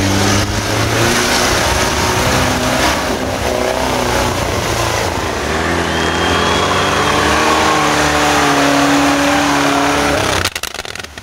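Off-road 4x4's engine revving hard under load as it ploughs through deep mud and water. Its pitch rises and falls as the throttle is worked, then the sound drops away suddenly near the end.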